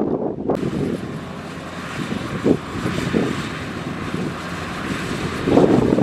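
Kubota DC105X combine harvester running while cutting rice, a steady machine drone with a hiss above it. One brief louder thump comes about two and a half seconds in.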